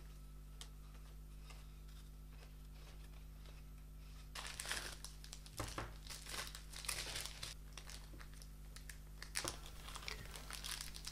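Faint crinkling of small plastic packaging bags being handled and opened. It starts about four seconds in and comes in short bursts, over a steady low hum.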